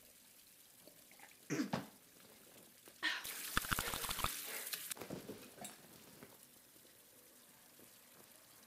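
Penis desensitising spray hissing for about two seconds, after a short louder sound about a second and a half in.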